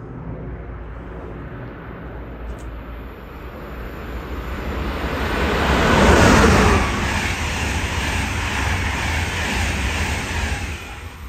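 A train passing through at speed: the noise swells to a peak about six seconds in, then carries on as a steady rush until it drops away near the end.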